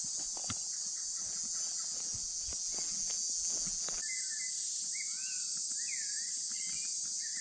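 A steady, high insect buzz of crickets or cicadas throughout, with scattered short knocks and crunches in the first half. From about halfway, birds whistle in short rising and falling calls.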